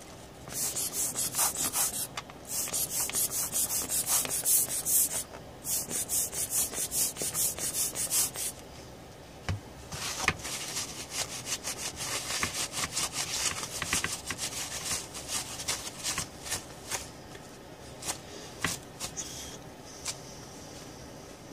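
Fast back-and-forth scrubbing on a laptop motherboard to clean flux residue from around and under the graphics chip. The scrubbing is loud for the first several seconds, pausing twice. It then comes back softer and gives way to a few scattered clicks near the end.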